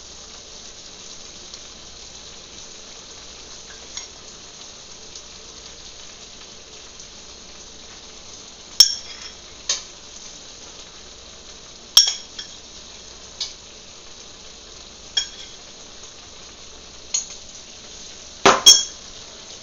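Sausage and vegetable stir fry sizzling steadily in a pan as flour is added, with sharp metallic clinks of a utensil against the pan every second or two, the loudest pair near the end.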